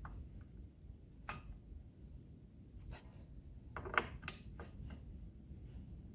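Faint clicks and scrapes of a hand screwdriver tightening the ignition coil's mounting screws on a Stihl MS461 chainsaw: a few scattered clicks, then a short cluster of them a little past the middle.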